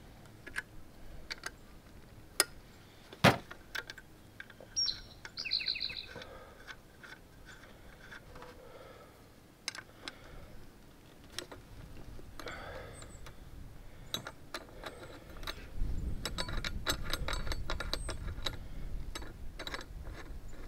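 Scattered light clicks and taps of metal and plastic as a solar flood light and its mounting hardware are handled and fitted. A short bird call comes about five seconds in, and a low rumble with denser clicking fills the last few seconds.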